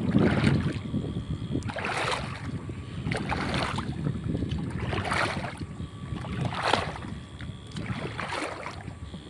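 Water sloshing and splashing in regular strokes, about one every second and a half, as something is pushed through shallow water.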